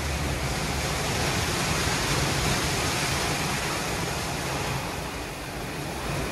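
WashTec SoftCare Bravo rollover car wash spraying water over a car, a steady rushing hiss over the low hum of the machine's motors and pumps, easing slightly about five seconds in.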